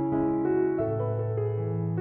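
Background music on a keyboard instrument: held notes and chords that change every half second or so.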